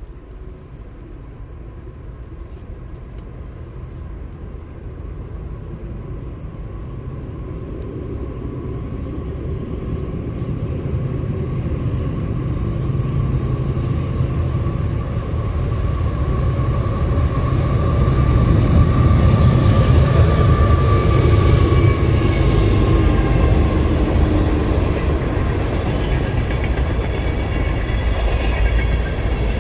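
CSX diesel freight locomotives approaching and passing, a low engine rumble growing steadily louder. A steady tone drops in pitch as the locomotives go by about 20 seconds in, and the freight cars then keep rumbling past.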